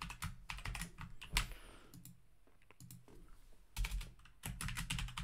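Typing on a computer keyboard: a few keystrokes in the first second and a half, a short lull, then a quick run of keystrokes near the end.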